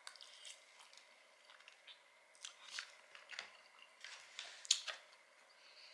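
A person chewing a mouthful of spaghetti: faint, wet mouth clicks, scattered and irregular, coming more often in the second half.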